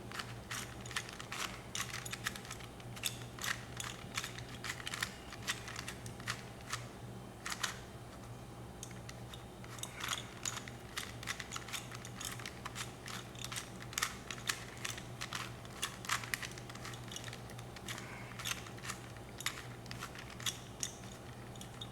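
Rubik's Cube being turned by hand: a quick, irregular run of small clicks and clacks as its layers rotate, over a faint steady hum.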